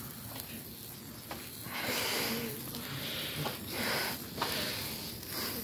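Hand-held sparkler fizzing and crackling, with two louder hissing swells about two and four seconds in.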